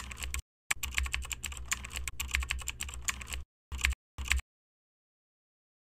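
Keyboard typing sound effect: rapid key clicks in quick runs, broken by a short pause just after the start and ending in two short bursts about four seconds in.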